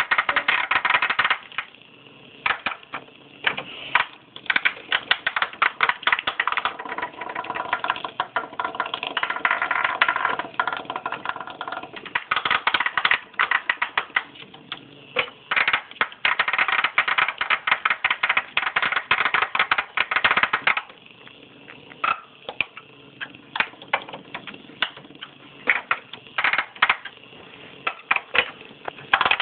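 Hexbug Nano vibrating toy bug skittering across a plastic play arena: a fast clicking rattle of its bristle legs and shell on the plastic, swelling at times into a steadier buzz and thinning out to sparse ticks at others.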